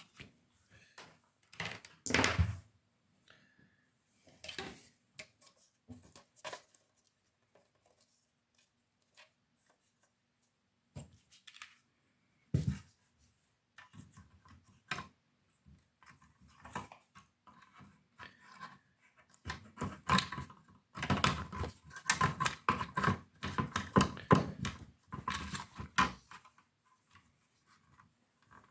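Hands reassembling a Tascam Porta 02 cassette four-track: plastic case parts, screws and tools clicking, knocking and scraping on and off, busiest in a run of rapid knocks and rattles in the last third.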